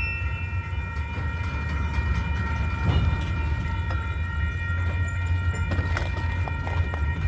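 Freight train of coil cars rolling slowly in reverse: a steady low rumble with several steady high tones above it. Scattered clicks and knocks come from the cars from about halfway through.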